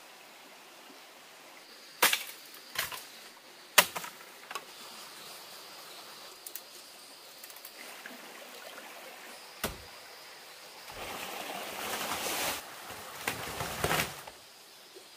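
A few sharp knocks, the loudest about four seconds in, then a few seconds of rustling or scraping near the end.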